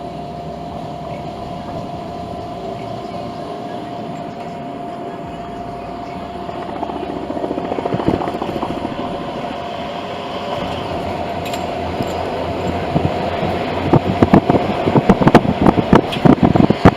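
A vehicle running with a steady hum. Over the second half, rough noise builds, and near the end come loud, irregular knocks and crackles.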